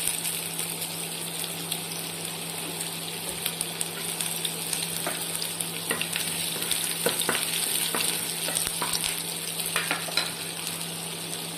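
Chopped onions sizzling in hot oil in a frying pan, with a spatula clicking and scraping against the pan as they are stirred from about halfway through. A steady low hum runs underneath.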